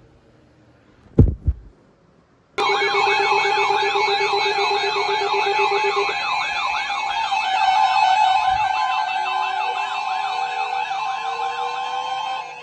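A low thump about a second in, then several weather alert radios suddenly sound their alarms at once, set off by a severe thunderstorm warning broadcast. The alarms are a mix of a fast rising-and-falling siren warble, about two to three sweeps a second, and steady alert tones. A lower beeping tone drops out partway through, and a slowly rising tone joins near the end.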